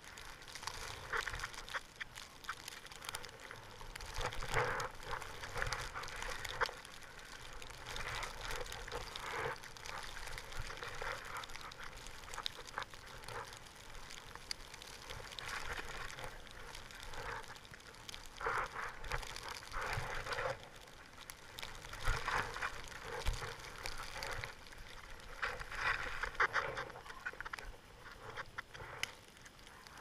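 Skis swishing through deep powder snow, a hiss that swells with each turn every couple of seconds, over a low rumble.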